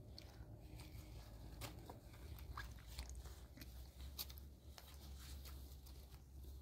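Faint eating sounds of a meal taken by hand: scattered small clicks and crackles as flatbread is handled and torn and a child eats, over a low steady hum.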